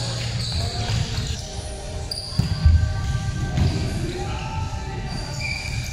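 Indoor volleyball rally: the ball being struck and bouncing, with players' shoes on the court and voices ringing in a large gym. The loudest thud comes about two and a half seconds in.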